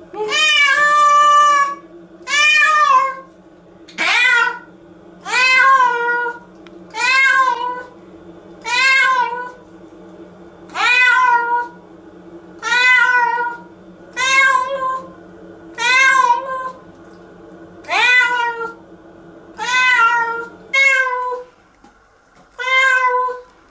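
Domestic cat meowing loudly over and over, about fourteen long drawn-out cries a second or two apart, each rising and then falling in pitch: crying in protest at being given a shower bath.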